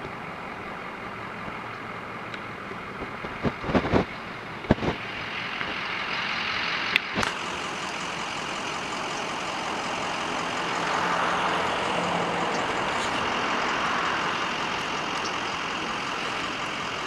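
Motor vehicle traffic: engines and tyres of cars passing, a steady noise that swells from about six seconds in and is loudest around the middle, with a few short sharp clicks in the first half.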